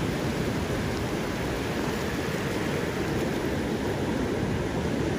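Wind rumbling steadily on the microphone over the even wash of surf.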